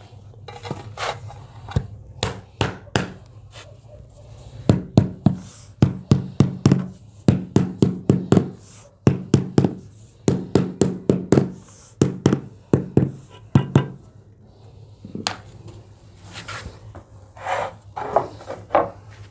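Rubber mallet tapping a marble floor tile down into its wet mortar bed, bedding it level: dull knocks coming in quick groups of a few taps a second with short pauses between groups. Quieter clatter and scraping of tiles being handled before and after the tapping.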